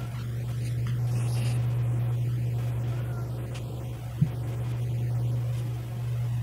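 Steady low electrical hum, with a single short click about four seconds in.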